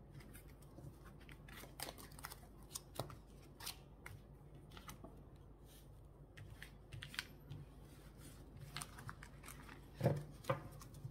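Tarot cards being gathered and shuffled by hand on a table: a run of light, irregular clicks and rustles of card stock, with a couple of louder knocks near the end.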